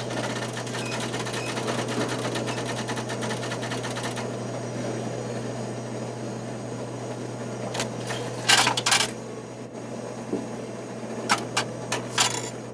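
Automated teller machine at work over a steady low hum: a fast, dense mechanical clatter for about the first four seconds, then a few short louder mechanical bursts and clicks in the second half.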